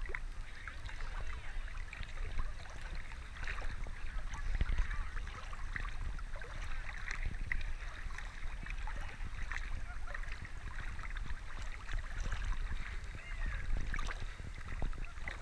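River water lapping and splashing against a camera floating at the surface, with small irregular splashes over a steady low rumble.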